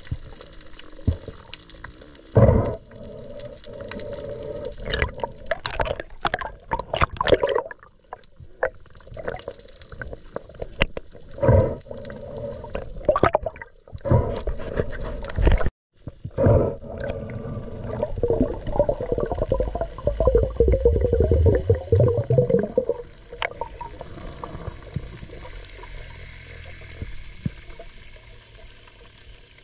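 Muffled water sloshing and gurgling in uneven surges, with a brief break about halfway through and quieter water near the end.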